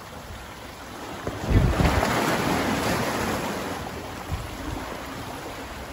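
Sea wave washing in against jetty rocks. It swells about a second and a half in and fades slowly over the next few seconds, with wind rumbling on the microphone.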